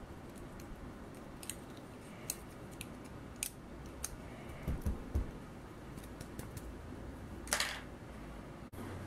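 Small clicks and scratches of a dental pick working inside a hollow plastic action-figure leg, picking out crumbled old rubber joint material. A couple of soft low thumps come about halfway through, and a longer scraping rustle near the end.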